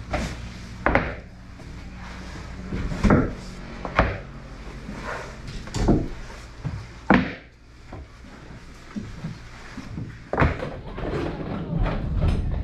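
Concrete weight blocks set down one at a time onto wooden press boards, giving about seven dull knocks at uneven intervals, with the clatter of the blocks being shifted between them.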